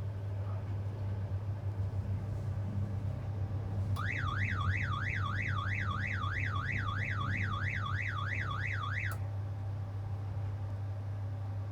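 Crane's wind alarm sounding a warbling tone that sweeps up and down about three times a second, starting about four seconds in and cutting off about five seconds later, over the steady hum of the crane's engine. It signals that the wind gusts are too strong for the lift.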